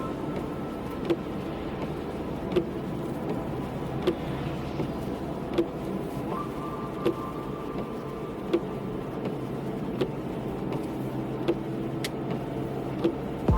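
Car driving in the rain: steady road and rain noise with a faint hum, and a short click that repeats evenly about every one and a half seconds.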